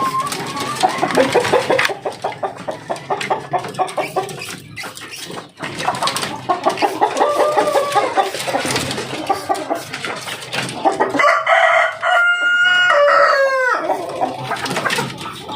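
Chickens clucking, then a rooster crowing once about eleven seconds in, a long call of nearly three seconds that falls at its end.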